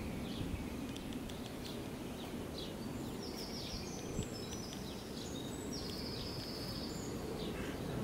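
Birds chirping outdoors, with two short, high, rapid trills about three and six seconds in, over a steady low background rumble.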